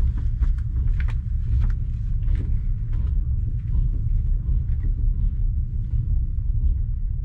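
Passenger train rolling slowly out of a station: a steady low rumble with irregular clicks and knocks from the wheels and carriage, busier in the first three seconds.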